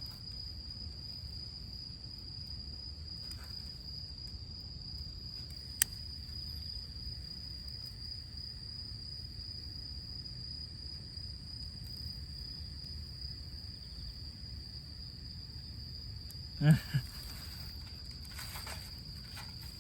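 Crickets trilling in one steady high note over a low outdoor rumble. There is a single sharp click about six seconds in, and two brief louder sounds close together near the end.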